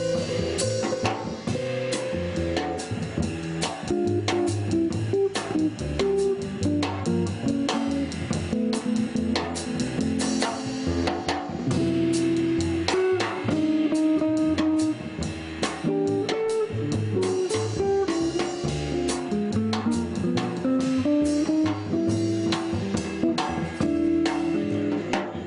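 Live jazz trio playing: an archtop guitar carries the melody over a walking upright double bass and a drum kit with cymbals.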